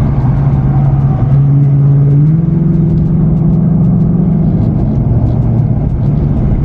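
2024 Ford Mustang GT's V8 engine heard from inside the cabin under acceleration on the freeway: its note steps up in pitch about a second in and again about two seconds in, holds there, then drops back a little near the end.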